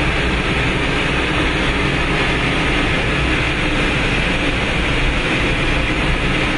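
Boiler room machinery running: a steady low hum under an even hiss that does not change.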